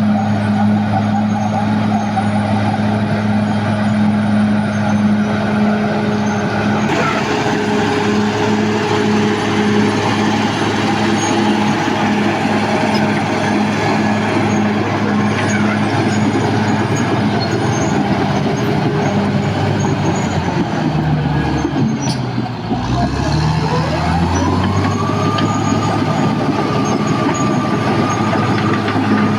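Caterpillar D6R XL bulldozer's diesel engine running steadily at high revs. About twenty seconds in, the engine note dips sharply and climbs back up, followed by a rising whine that levels off and holds.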